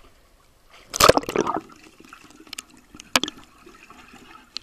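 A camera plunges into pool water with a loud splashing rush about a second in. Muffled underwater sloshing follows, with a few sharp clicks.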